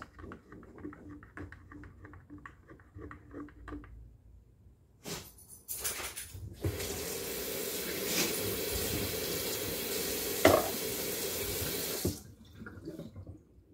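A spoon stirring coffee in a tall glass, clinking against the glass about three times a second for roughly four seconds. Then a kitchen faucet runs steadily into the sink for about five seconds, the loudest sound here, with one sharp clank partway through, and is shut off.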